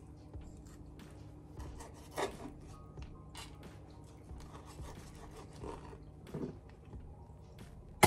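A kitchen knife slicing through a tomato onto a plastic cutting board: a run of short scraping cuts and taps, with a sharp click right at the end.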